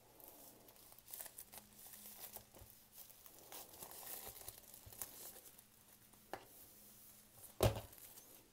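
Thin clear plastic sleeve crinkling and rustling faintly as a Blu-ray case is slid out of it, with one louder bump near the end.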